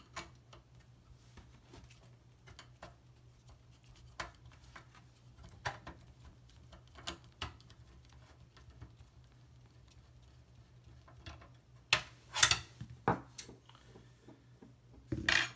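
Scattered faint clicks and scrapes of a screwdriver turning screws out of a steel case support beam. Near the end come a few louder sharp knocks and clatters of metal.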